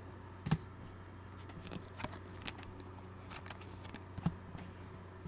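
Light clicks and taps of trading cards and plastic card holders being handled on a table, the sharpest click about half a second in, over a low steady hum.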